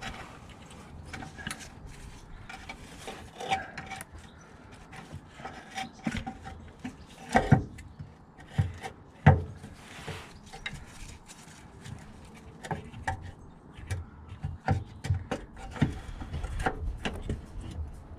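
Irregular scraping, rubbing and knocking as a reconditioned electric power steering pump in its cage is worked into its tight mounting space on an R53 Mini Cooper S, with a few heavier clunks about seven and a half and nine seconds in.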